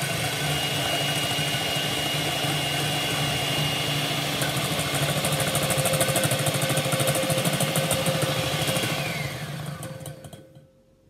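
Electric hand mixer whisking egg whites in a stainless steel bowl: a steady motor whine with its beaters churning, and a fast rattle in the middle. The motor winds down and stops about ten seconds in.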